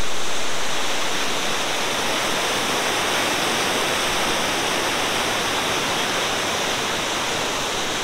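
Whitewater rapids rushing over rock ledges in a river gorge: a steady, loud, unbroken rush of water.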